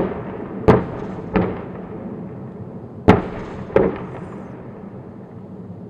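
Artillery fire: four sharp booms in two pairs, one pair near the start and one about three seconds in, each trailing off in a rumbling echo.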